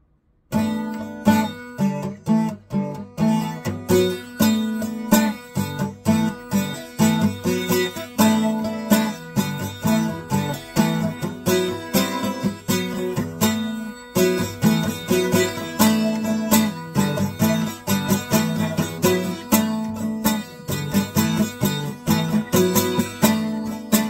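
Background music played on acoustic guitar: chords strummed and picked in a steady rhythm, starting about half a second in.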